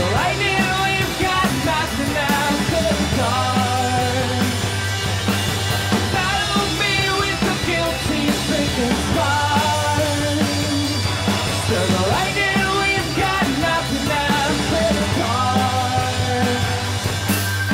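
Indie rock band playing an upbeat song live: electric guitars, bass guitar, drum kit and keyboard, with a singer.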